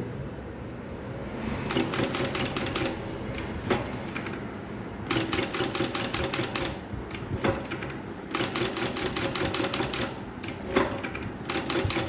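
Remington typewriter being typed on in quick runs of keystrokes: several bursts of rapid clacks with short pauses and a few single strikes between them. It is a test-typing at single line spacing after a dog block repair.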